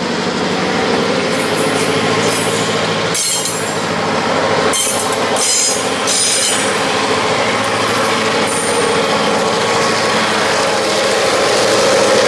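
Chicago and North Western bi-level passenger coaches rolling past close by: a steady rumble of wheels on rail, with several sharp clicks and squeals from the wheels. The diesel locomotive pushing at the rear of the train draws level near the end and the sound grows a little louder.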